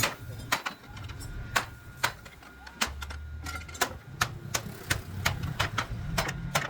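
A run of sharp, irregular knocks from hand tools striking in woodworking, sparse at first and coming about three or four a second in the second half, over a low hum.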